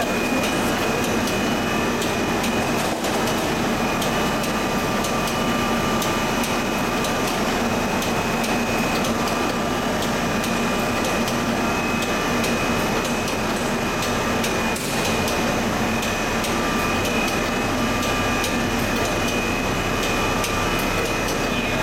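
Plastic sheet extrusion line machinery running steadily: a continuous low hum with a high whine on top and faint scattered ticking.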